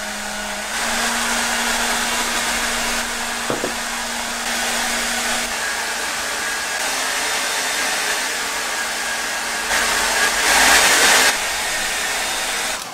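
Handheld hair dryer running steadily with a faint hum, louder for a moment about two seconds before the end, then switched off and winding down.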